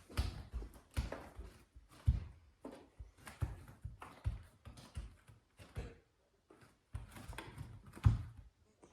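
Scattered light thumps and knocks, one or two a second, with a quiet pause about two-thirds of the way through.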